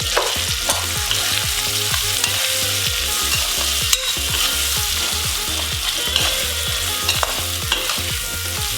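Onion, tomato and whole-spice masala sizzling in hot oil in a pan, a steady hiss, stirred with a spatula that scrapes and taps against the pan every so often.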